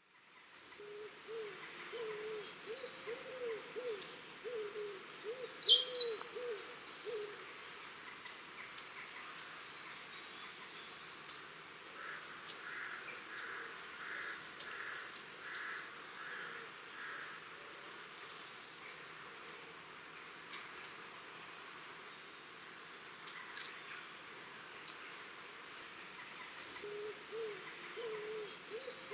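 A flock of long-tailed tits giving many short, very high, thin contact calls, with one louder call about six seconds in. A lower, rapidly warbling hooting sound runs through the first seven seconds and comes back near the end.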